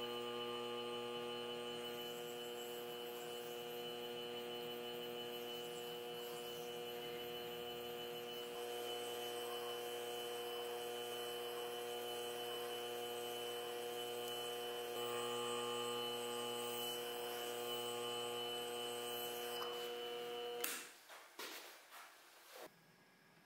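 Small lathe motor running at a steady speed with a constant hum and whine while a 1cc model engine cylinder is lapped on a spinning piston. The motor cuts off suddenly about 21 seconds in, followed by a few light knocks.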